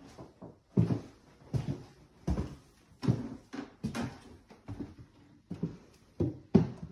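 Footsteps on wooden floorboards at a steady walking pace, about one dull thud every three-quarters of a second.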